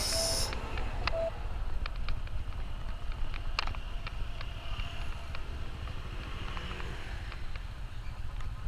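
Yamaha motor scooter being ridden along a street: a steady low rumble of engine and road noise, with a few faint clicks.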